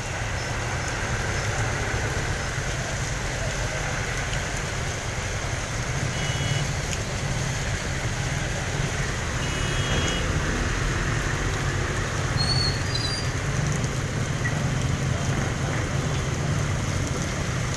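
Heavy rain pouring down on a wet street while cars and a truck drive slowly past, with a steady low engine hum under the hiss of the rain. A few faint short beeps come about six and ten seconds in.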